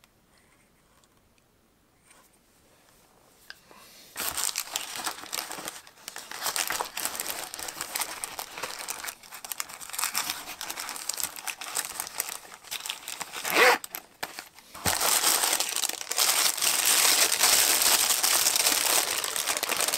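Tissue paper packing crinkling and rustling as it is handled and pulled out of a cardboard box. It starts about four seconds in after near quiet, with a brief louder crackle about two-thirds of the way through and louder crinkling in the last few seconds.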